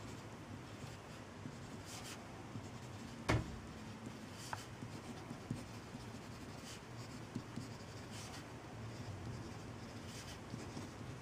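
Pen writing on paper: faint, steady scratching of the tip as words are handwritten, with a sharper tap about three seconds in.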